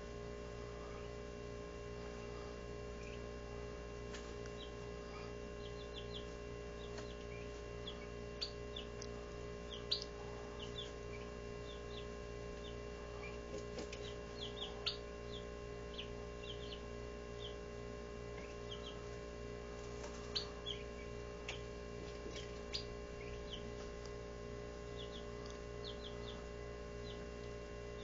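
17-day-old Barred Rock chicks peeping: short, high chirps scattered irregularly, a few louder than the rest, over a steady hum.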